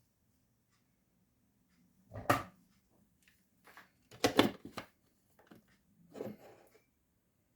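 Kitchen handling noises: three short clattering knocks about two seconds apart, the middle one loudest, with a faint knock between the first two.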